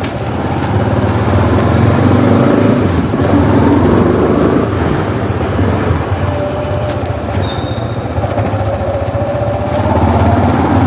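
Yamaha R15 V4 motorcycle's single-cylinder engine running on a short test ride, echoing around an underground car park; it eases off as the bike reaches the far end and grows louder again, rising in pitch, near the end as it comes back.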